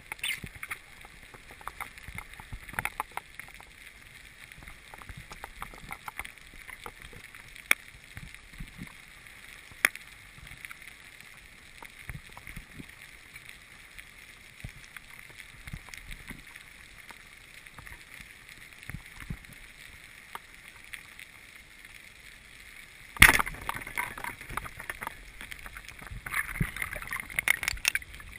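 Water sloshing and gurgling with many scattered sharp clicks. A louder sudden burst of splashing and crackling comes about 23 seconds in, and more crackling follows near the end.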